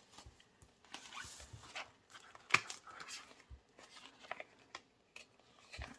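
Quiet handling of paper banknotes and a challenge binder: soft rustles and small taps, with one sharp click about two and a half seconds in.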